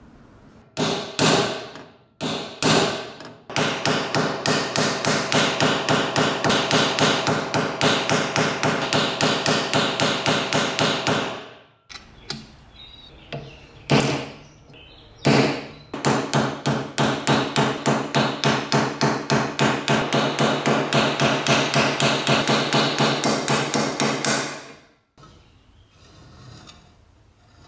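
Hammer blows on ringing metal. A few single blows lead into a long run of rapid, even strikes at about five a second. After a short pause and two more single blows comes a second fast run, which stops shortly before the end.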